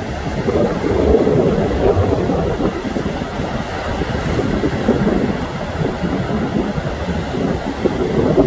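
Heavy ocean surf breaking, a steady low rumble, with gusty wind buffeting the phone's microphone.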